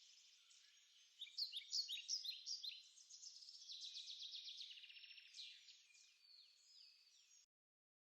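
Birds chirping and trilling, many quick high calls overlapping, louder in the first half, that cut off abruptly near the end.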